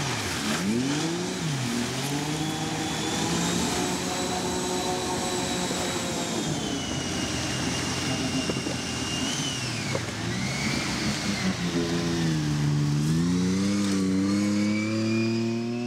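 WaterCar Panther amphibious vehicle's 3.7-litre V6 engine running hard as it powers across the water and climbs out onto the beach. The engine note swings up and down several times, dipping and then climbing again near the end.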